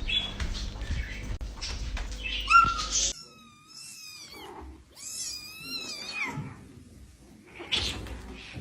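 A cat meowing: a short high cry about two and a half seconds in, over knocks and shuffling, then two long, wavering meows and a shorter call near the end.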